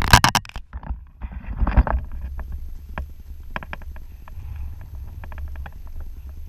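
Wind buffeting an action camera's microphone: a steady low rumble, with two strong gusts in the first two seconds and a few light clicks and taps later.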